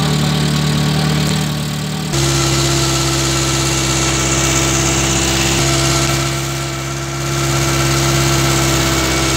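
Motorboat engine running steadily with a constant drone. About two seconds in, the engine note changes abruptly to a slightly different pitch and grows a little louder.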